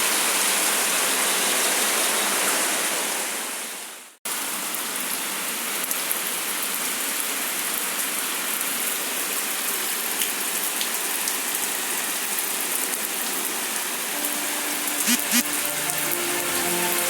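Heavy rain falling, a steady hiss. It fades and cuts off about four seconds in, then comes back just as heavy. Near the end, music comes in over the rain.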